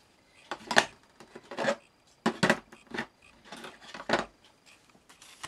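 Light clicks and clatters of plastic ink pad cases being handled and set down on a table, about six or seven irregular knocks.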